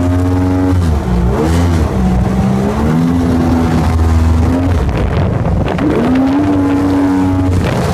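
Funjet jet boat's engine running under way. Its pitch drops about a second in, wavers lower for a few seconds, then climbs back near six seconds in. Near the end the engine tone gives way to a rushing noise.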